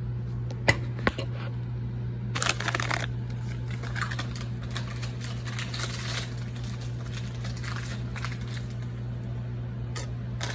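Irregular sharp clicks and crinkly crackling of jalapeno chips being handled and crunched, over a steady low hum.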